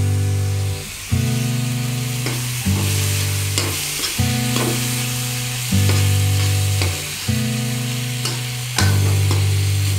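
Raw mango slices frying and sizzling in an iron kadhai, with a metal spoon stirring and scraping against the pan in short clicks. Background music plays throughout, with sustained chords changing about every second and a half.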